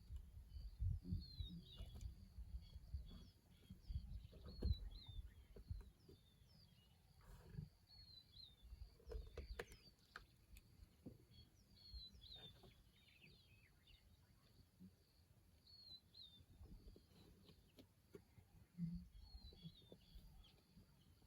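Bird chirping faintly, short high calls repeating every second or two, with low rumbling noise in the first few seconds.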